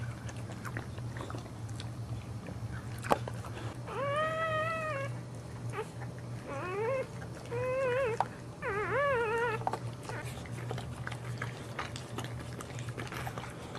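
Newborn Boxer puppy crying in four high, wavering squeals from about four to ten seconds in as its mother licks it clean, with small wet licking clicks and a low steady hum underneath.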